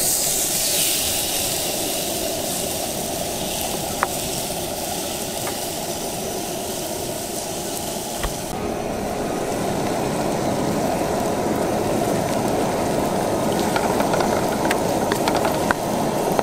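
Seasoned halibut fillets sizzling loudly on a hot Weber grill grate. About halfway through, the sizzle changes to the lower, busier frying of eggs and onions in a wok, with a few light ticks of a wooden spatula.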